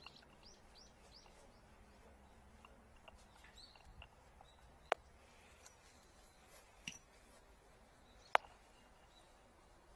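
Quiet background with a quick run of four faint, short bird chirps near the start, then three sharp clicks a second or two apart.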